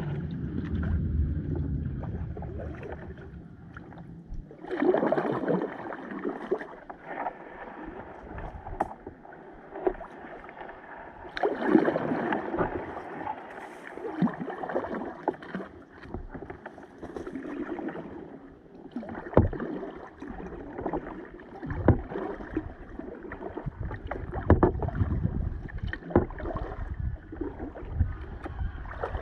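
Kayak paddle strokes: the blades dip and splash in the river water with a swell of water sound every few seconds. Several sharp knocks come in the second half.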